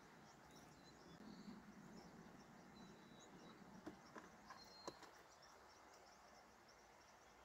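Near silence in the open at dusk: faint high chirping of small animals, with a few soft knocks about four and five seconds in.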